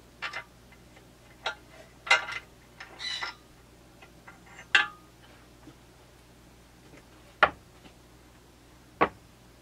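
Scattered light clicks and knocks, about eight in all, of small parts and tools being handled and set down, with a short rustle about three seconds in.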